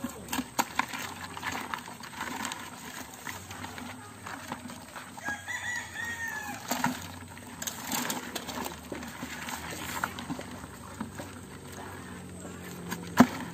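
Live crabs clattering and scraping in a plastic bucket as they are lifted out one by one with a stick, with sharp clicks throughout and a loud knock near the end. A rooster crows once in the background about halfway through.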